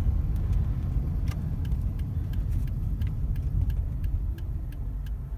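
Car being test-driven after a serpentine belt replacement: a steady low engine and road rumble, with a run of light ticks through it. The rumble drops a little about four seconds in.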